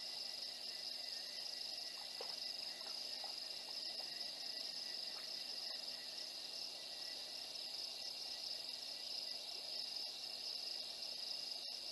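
Steady nighttime chorus of insects: a continuous high-pitched trill that holds an even level throughout.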